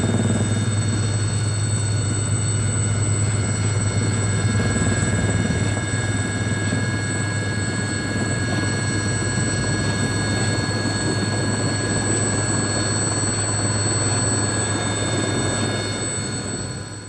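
A steady mechanical drone with a strong low hum and several high, constant whines, like an aircraft engine or turbine running; it fades out near the end.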